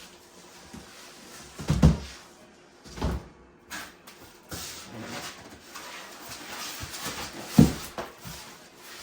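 Cardboard subwoofer box and its packing being handled: rustling with three dull thumps, the loudest near the end.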